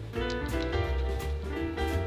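Background music: an upbeat jazzy tune with piano, guitar and a steady bass beat.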